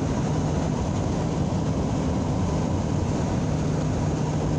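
Steady road noise and low engine drone heard from inside a moving car.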